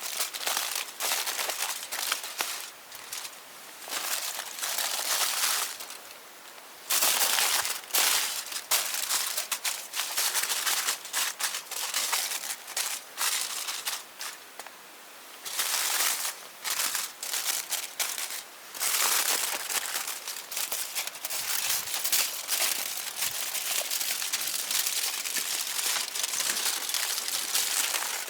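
Irregular crinkling and rustling in bursts of a second or two, with short lulls between.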